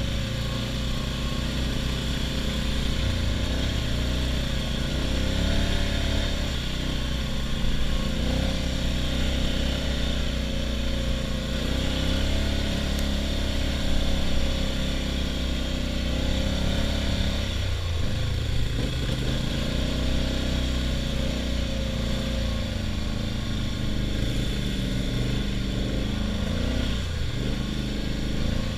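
ATV engine running as the quad rides along, its pitch rising and falling as the throttle opens and closes.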